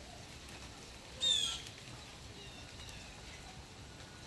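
Blue jay giving one loud, harsh, rasping jeer call about a second in, with a few faint bird chirps near the middle, over a steady background of light rain.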